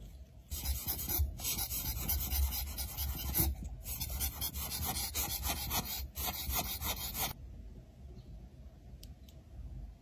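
Jet of air hissing from a small blower nozzle, blowing sand grains off a lipstick. It stops briefly three times and ends about three-quarters of the way through.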